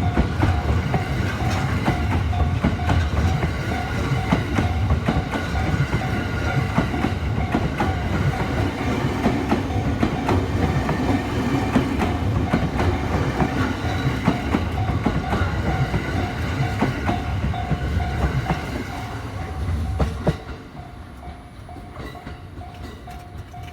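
A 15-car E217 series electric train runs past at a railway level crossing: a low rumble with rapid wheel clicks. The crossing's warning bell keeps up a steady ding-ding throughout. About twenty seconds in, the train noise drops off sharply as the last car goes by, leaving the bell ringing.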